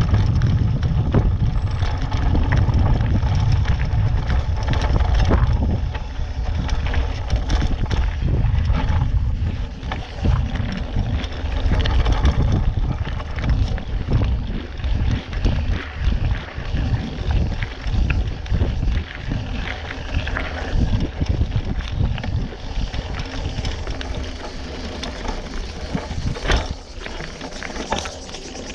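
Mountain bike rolling over a rocky dirt trail: wind buffets the microphone, heaviest in the first few seconds, over a steady run of rattles and knocks from the bike and its knobby tyres on stones and gravel.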